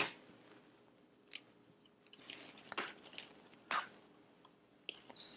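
Faint plastic clicks and scrapes as fingers pry and work at the plastic trim of an Escort Max360 radar detector's housing, with a sharper click at the start and another a little under four seconds in.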